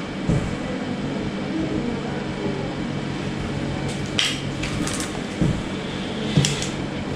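Steady low room hum, such as air conditioning or equipment, with a few brief rustles and soft knocks from handling the kitten on the exam table about four to six and a half seconds in.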